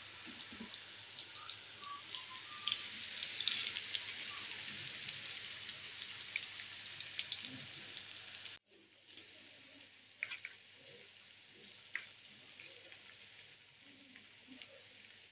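Sliced onions sizzling in hot oil in a frying pan, a steady hiss dotted with small crackles and pops. About eight and a half seconds in the sizzle cuts off abruptly, leaving only faint pops and clicks.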